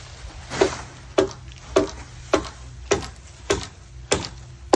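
Hammer blows on the wooden pole frame of a tiki hut roof: about eight sharp knocks at an even pace, a little under two a second, starting about half a second in. A steady low hum runs underneath.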